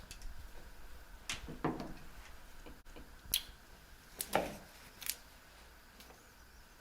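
Hand tools being handled at the shower arm: a handful of light, separate clicks and knocks, spread a second or so apart, over faint room hiss.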